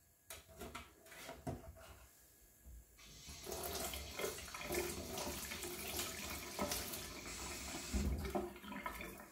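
Kitchen tap running into a stainless steel sink as hands are rinsed under the stream, starting about three seconds in. A few light knocks come before it.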